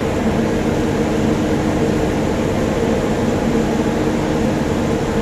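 A train running: a loud, steady mechanical drone with a low hum that starts abruptly and holds even.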